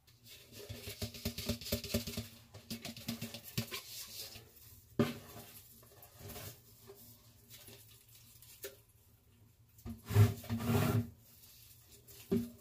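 Superworms being tipped out onto a hard enclosure floor: a dense rattling patter for a few seconds. This is followed by a sharp knock about five seconds in and a louder cluster of knocks and rustling around ten seconds in.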